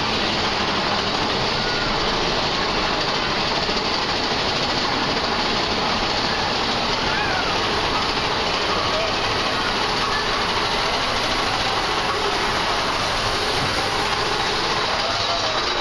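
Big Thunder Mountain Railroad mine-train roller coaster running along its track: a steady, loud rush and rumble of the cars, with a few brief voices of riders over it.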